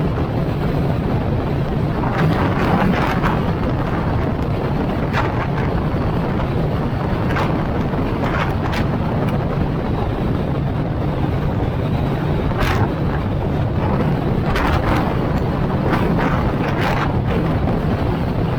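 Wind buffeting the microphone of a moving car over a steady low road rumble, with brief hissy gusts flaring every second or few.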